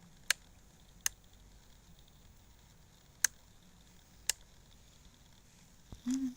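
Four sharp, separate clicks at uneven intervals, with a short low hum near the end.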